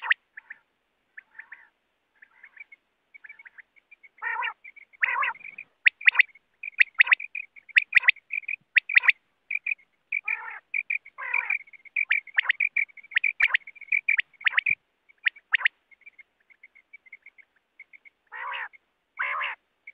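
Coturnix quail calling: rapid runs of short, high chirping notes, broken by several longer, harsher calls about four and five seconds in, twice around ten to eleven seconds, and again near the end.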